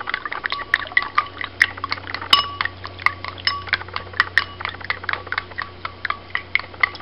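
Chopsticks beating raw eggs with scallops in a ceramic bowl: a fast, irregular run of clicks against the bowl, some leaving a brief ringing tone.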